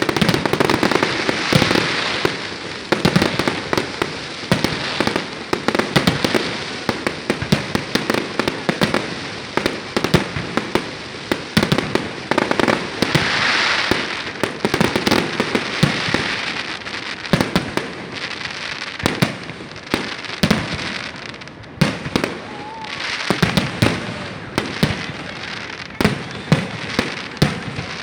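Aerial fireworks going off in a dense barrage: sharp bangs several times a second, mixed with stretches of crackling hiss from crackle-effect shells, with a short lull about two-thirds of the way through.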